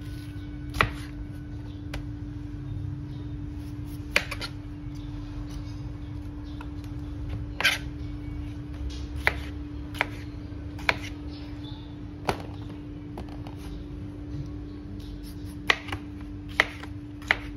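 Kitchen knife cutting through peeled pineapple and knocking on a plastic cutting board: about ten sharp taps at uneven intervals, over a steady low hum.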